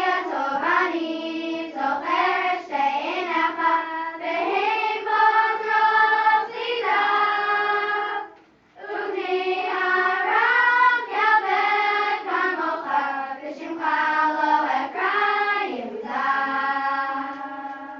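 A group of girls, about eleven or twelve years old, singing a song together in unison with no instruments. The singing breaks off briefly about eight seconds in, then resumes and fades out near the end.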